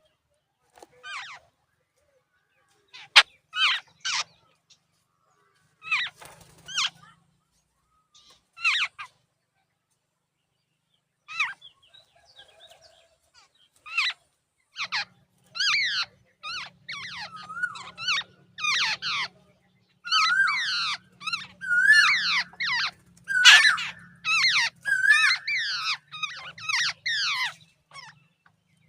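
Jungle babblers calling: short calls that sweep down in pitch, scattered at first, then from about halfway a quick, nearly unbroken run of calls.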